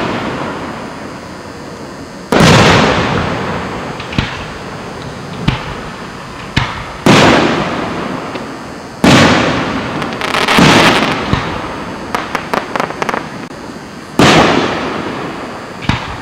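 Aerial fireworks shells bursting: about five loud booms, each echoing and fading over a couple of seconds, with smaller pops between them and a quick run of crackling a little past the middle.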